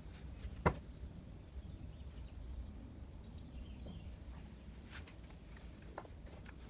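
A few light clicks and taps over a low background hum, the sharpest about a second in, with a short, faint, high falling chirp near the end.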